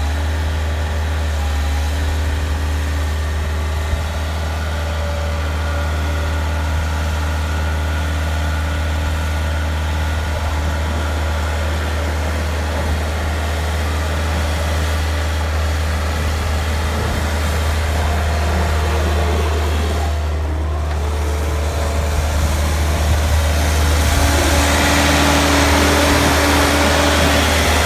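New Holland L-555 skid steer's engine running steadily, growing louder with more hiss and clatter near the end.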